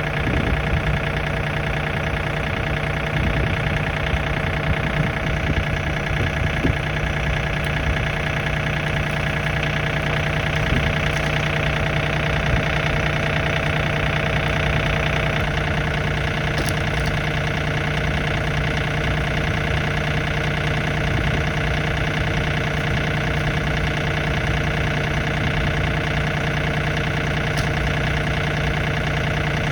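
An engine running steadily at constant speed, its tone shifting slightly about halfway through.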